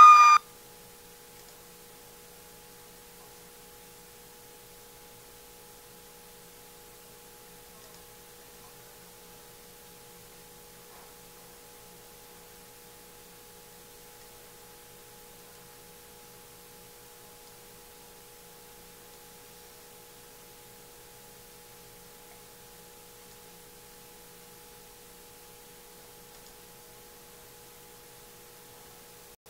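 Faint steady hum made of two unchanging tones, one of them lower and stronger. A high-pitched yell cuts off right at the start.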